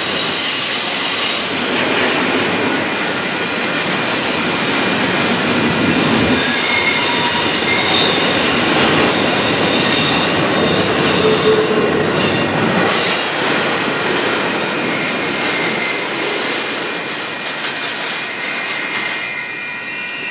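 Double-stack intermodal container train rolling past on well cars, its steel wheels squealing in several steady high-pitched tones over the rolling rumble. A few sharp clanks come around the middle, and the sound gets quieter over the last few seconds as the tail end goes by.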